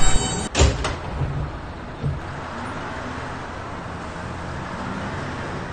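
Subway train at a station stop: a sharp double clunk about half a second in, then a steady low hum and hiss from the standing train.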